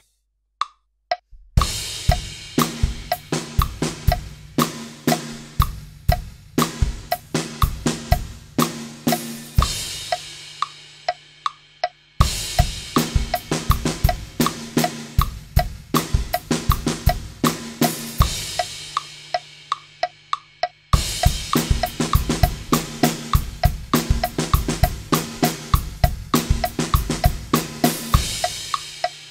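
Acoustic drum kit playing a short groove on kick, snare, hi-hat and cymbals, after a few faint ticks. The groove is played three times, at 60, 80 and then 100 BPM, each pass faster than the one before. The first two passes end on a cymbal ringing out.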